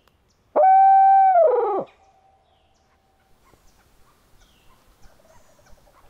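Mouth-blown owl hooter locator call: one long hooting note, held level and then falling and breaking at its end, starting about half a second in and lasting just over a second. It is blown to make turkey gobblers answer so they can be pinpointed.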